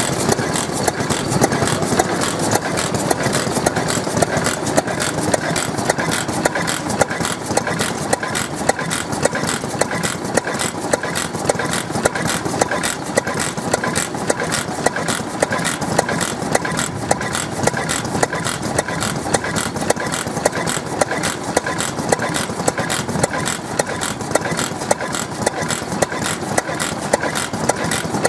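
Petter Patent oil engine, a single-cylinder horizontal stationary engine, running at a steady speed with an even, regular beat of sharp knocks.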